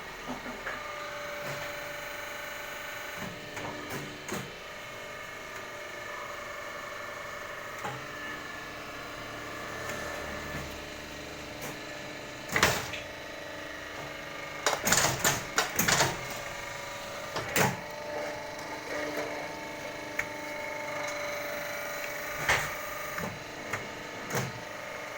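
Gallon-jug cap machine running: a steady motor hum with intermittent mechanical clicks, and a cluster of louder clacks about halfway through.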